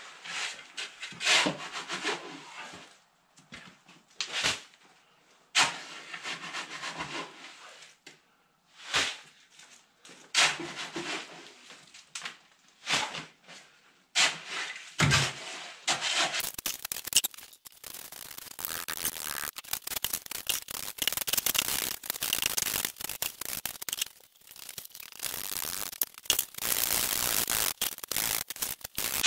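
Steel shovel scraping and scooping wet concrete out of a wheelbarrow and into a wooden form, in separate strokes. From about halfway through come rapid, near-continuous scrapes across the concrete, working it level in the form.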